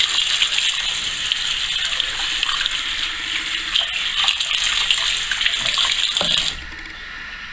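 Bathroom sink tap running, water splashing through strands of hair as toner is rinsed out into the basin. The flow stops abruptly about six and a half seconds in as the tap is turned off.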